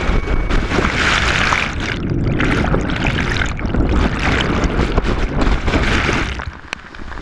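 Churning river whitewater rushing over a kayak-mounted camera as it plunges through and under the foam. The rush swells and eases every second or two and drops off briefly near the end.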